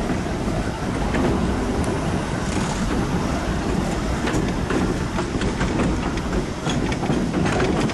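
Train rolling along the rails: a steady low rumble with irregular sharp clacks as the wheels cross rail joints and a set of switch points.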